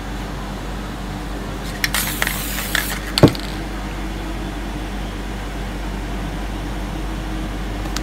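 A spatula scraping and flicking across wet spray paint on paper: a short scratchy rasp with small clicks about two seconds in, then one sharp tap of the tool. A steady low hum runs underneath.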